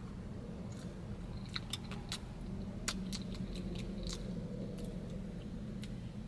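Scattered light clicks and crackles of a plastic coffee cup, lid and stopper being handled, over a steady low hum in the car.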